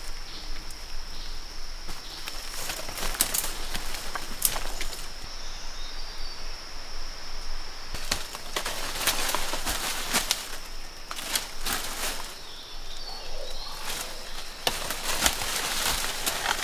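Footsteps crunching through jungle leaf litter and undergrowth, with leaves and a bundle of dry palm fronds rustling as a person pushes through; the crackling comes in irregular clusters. A steady high insect drone runs underneath and stops near the end.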